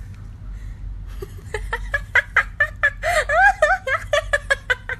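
A person laughing in a quick run of short bursts, starting about a second and a half in and lasting about three seconds.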